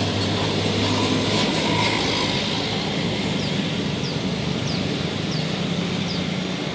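A bus engine running steadily as the bus comes along the road, a continuous low drone with road noise.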